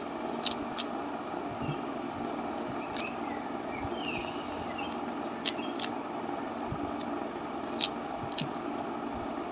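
Plastic Rubik's cube being turned by hand: scattered sharp clicks of its layers snapping round, some in quick pairs, about seven in all, over a steady background hum.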